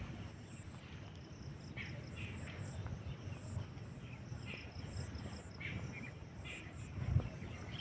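Outdoor ambience of insects and birds chirping: many short, high chirps repeating irregularly over a low rumble.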